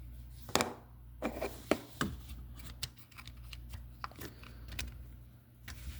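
Scattered light clicks, taps and rubbing of plastic parts as a dishwasher's turbidity sensor is handled and pushed back into its housing.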